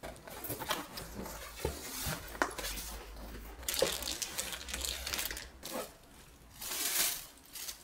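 Groceries being unpacked from a cardboard box: plastic packaging on a whole chicken and other items crinkling and rustling, with light knocks as things are lifted out and set down.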